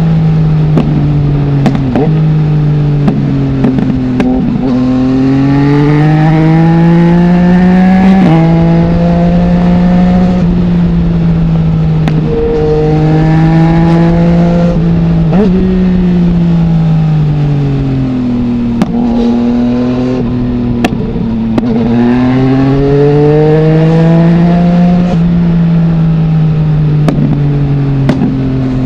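2020 Yamaha MT-09's three-cylinder engine through an Akrapovic full-system exhaust with no dB killer, pulling up through the revs, dropping sharply at each gear change and winding down off the throttle, over and over. Short sharp cracks come here and there.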